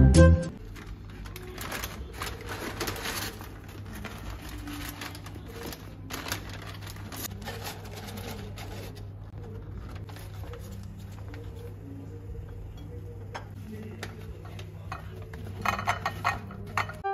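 Paper takeaway bags and a cardboard tray rustling and crinkling as fries and grilled chicken are tipped out onto ceramic plates, with light knocks against the plates. A steady low hum runs underneath, and there is a louder run of rustling near the end.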